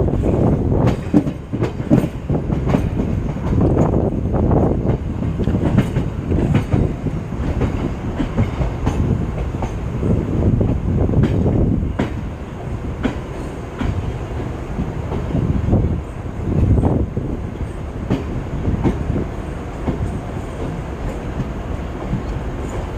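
Electric multiple unit (EMU) local train running, heard from on board: a steady low rumble with irregular clacks of the wheels over rail joints.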